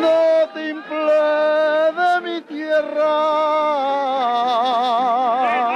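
A singer holding long notes in a Canarian parranda folk song, with a short break about two and a half seconds in; the last note is held with a wide, even vibrato.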